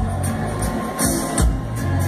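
Live reggae-rock band playing loudly through a festival sound system, with heavy bass, kick drum and a few cymbal crashes.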